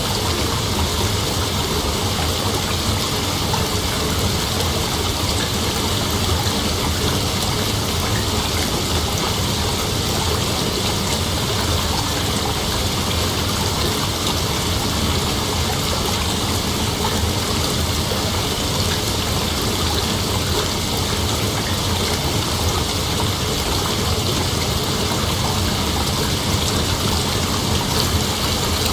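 Steady, dense chorus of night insects, blurred into an even hiss with no separate calls.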